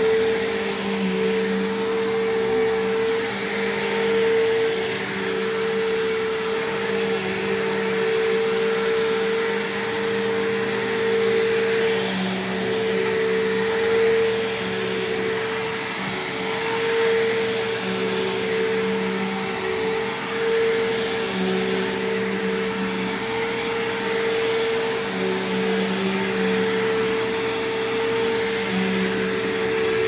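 Bissell PowerTrak Revolution upright bagless vacuum running on carpet, a steady motor hum over the rush of suction, swelling and easing a little as it is pushed back and forth. Its motor is one the owner calls a little funky: not bad, but not good either.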